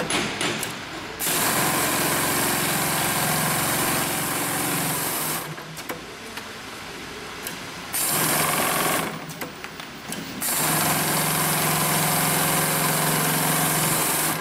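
HighTex FIBC700 two-needle, four-thread chain-stitch big-bag sewing machine stitching heavy webbing. It runs at speed in starts and stops: a steady hum for about four seconds, a pause, a one-second run, a pause, then another four-second run.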